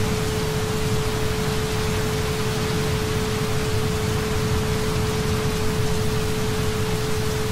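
Steady recorded rain, an even hiss, with a continuous 432 Hz tone held under it.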